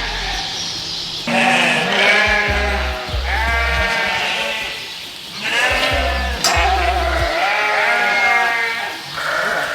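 Sheep bleating, one long wavering bleat after another with hardly a pause.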